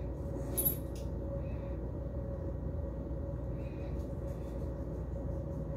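Steady low background hum with a faint steady tone in it, and a brief soft click or rustle about half a second in.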